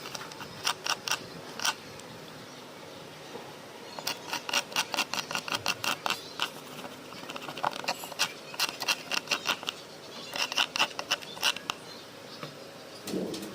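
Bursts of quick small clicks and scratches from hands working on an electric guitar during cleaning and parts replacement, in four separate runs with pauses between, and a short soft rub near the end.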